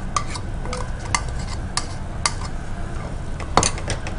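Spoon stirring a thick yogurt-spice masala into mutton haleem in a pot, clinking and scraping against the pot and bowl in irregular taps, the loudest about three and a half seconds in.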